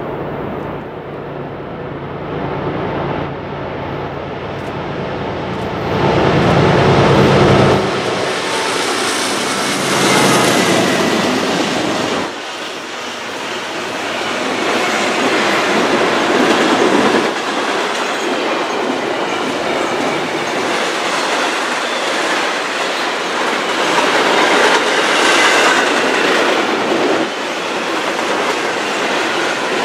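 A southbound freight led by two diesel-electric locomotives, a GE ES44DC and a GE Dash 8-40CW, running louder as they approach and passing about eight seconds in. A long string of double-stack container well cars then rolls by with steady wheel noise and clickety-clack over the rail joints, and a faint squeal from the wheels now and then.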